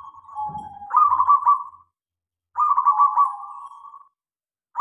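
Zebra dove (perkutut) cooing: two phrases, each a quick run of short staccato coos over a held note, with a third phrase starting at the end.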